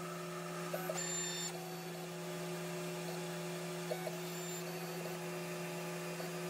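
Snapmaker 2.0 3D printer running its auto-leveling routine: a steady machine hum as the stepper motors carry the print head across the bed between probing points. A short high-pitched whine comes about a second in, and there are a few light clicks.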